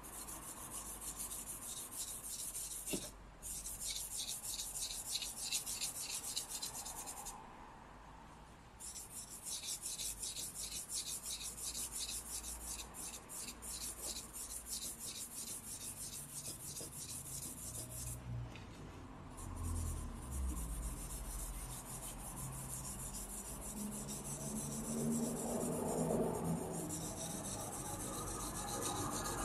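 Charcoal stick scratching across drawing paper in quick, rhythmic back-and-forth hatching strokes, shading in a dark area, with three short pauses.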